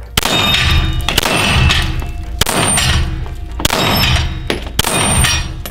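Five 9mm pistol shots about a second apart, each followed by the ringing clang of a hit steel gong target and the shot's echo.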